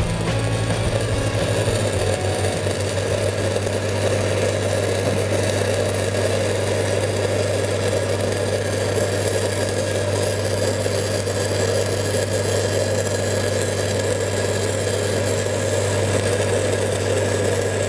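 Crackling of a stick-welding arc as a 1/8-inch 6010 rod (5P+) burns along a pipe joint, over the steady hum of a Lincoln SA-200 engine-driven welder running. Both keep on evenly throughout.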